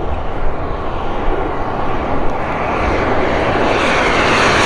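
Radio-controlled model jet's turbine engine flying past: a steady rush with a thin high whine, growing louder toward the end as it comes closer.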